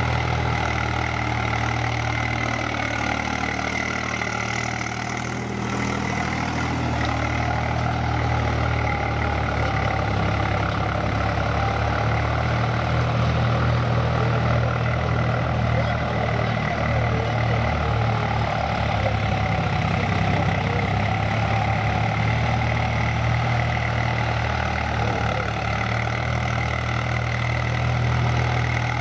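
Swaraj 735 FE tractor's diesel engine running steadily as it pulls a tine cultivator through soil.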